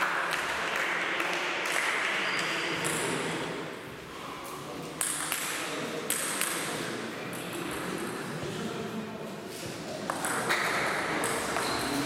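Table tennis ball being struck back and forth, sharp hollow clicks off the rackets and table at an uneven pace, each with a short high ping.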